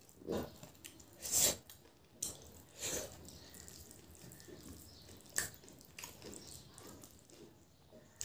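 Wet, close-up eating sounds of a person eating rice and curry by hand: chewing and lip smacking, with a hand squishing rice on a steel plate, in several short separate bursts, the loudest about a second and a half in.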